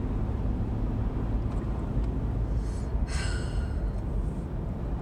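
Steady road and engine rumble inside a moving car's cabin, with one short breathy vocal sound, like a gasp or laugh, about three seconds in.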